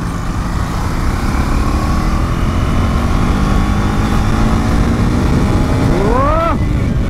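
KTM Duke 390's single-cylinder engine running under way, its pitch climbing slowly as the bike gathers speed. Near the end comes a short tone that rises sharply and falls again.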